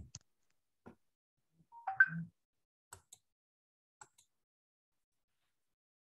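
A few scattered soft clicks of a computer mouse and keyboard, spaced about a second apart. About two seconds in comes a short electronic blip of two quick tones.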